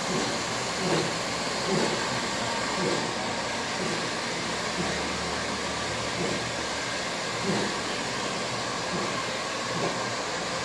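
Steady whooshing noise like a running electric fan, with a faint hum.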